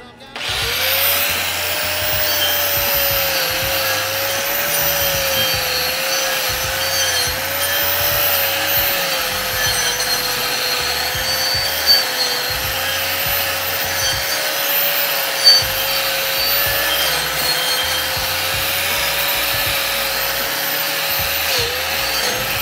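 Handheld angle grinder with a wire wheel spinning up, then running steadily against an overhead weld bead to clean it, with a steady whine and two brief louder scrapes partway through. It winds down at the end.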